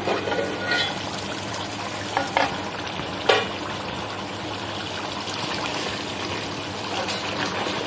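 Meat and yogurt masala sizzling and bubbling in an uncovered aluminium pot, stirred with a steel slotted spoon. A few sharp metal clinks in the first half as the lid and spoon touch the pot.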